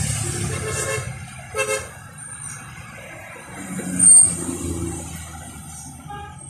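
Road traffic rumbling, with a short vehicle horn toot about one and a half seconds in. A brief shrill squeal, the loudest sound, comes about four seconds in.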